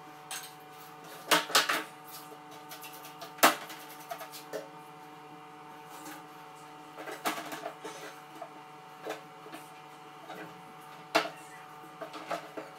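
Scattered knocks, clacks and rustles of a bathroom being cleaned by hand: cloths wiping the sink and toilet, and the plastic toilet seat and fixtures being handled, over a steady hum. The sharpest knock is about three and a half seconds in.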